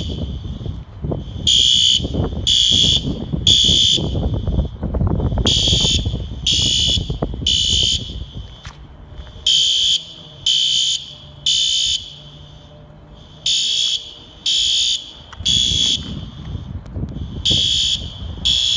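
Outdoor fire alarm horns (System Sensor horn strobes) sounding the temporal-three evacuation pattern: three half-second blasts, a pause, then three again, repeating about every four seconds. A low rustling noise runs under the first half and fades about eight seconds in.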